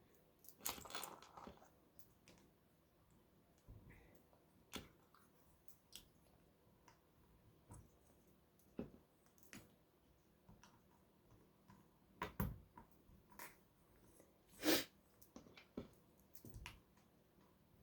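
Faint, scattered clicks and light clatter of plastic LEGO pieces being handled and pressed together, with a couple of louder clicks about twelve and fifteen seconds in.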